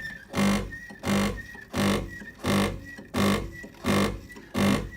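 Sunbeam Torino EM8000 espresso machine's pump buzzing in short, even pulses, about one and a half a second, with a faint thin whistle after each. It is trying to pump water to the steam wand but no steam comes out, a fault the owner puts down to the steam solenoid.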